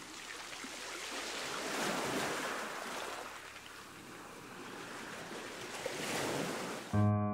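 Small sea waves washing against shore rocks, an even rushing hiss that swells and fades twice. Piano music comes in sharply near the end.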